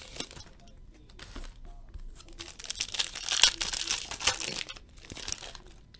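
Foil trading-card pack wrapper being torn open and crinkled by hand, crackling in irregular bursts that are loudest around the middle.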